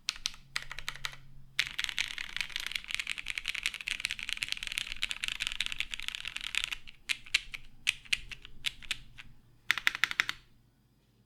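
Typing on a Matrix 8xv 1.2OG mechanical keyboard with lubed vintage Cherry MX Black linear switches on an aluminum half plate, under GMK keycaps. A fast, steady run of keystrokes gives way to slower, scattered strokes, then a brief cluster of the loudest strokes just before the typing stops.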